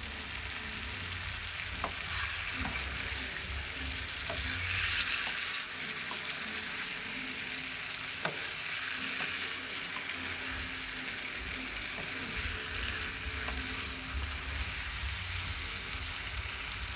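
Mixed vegetables sizzling and bubbling in a non-stick pan just after half a cup of water has gone in, stirred with a spatula that clicks and scrapes against the pan now and then. The sizzle swells briefly about five seconds in.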